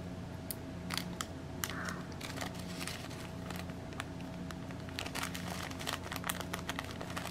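Small plastic bags of diamond painting drills crinkling and clicking as they are handled, in scattered light bursts that are busiest about five to six seconds in. A faint steady hum runs underneath.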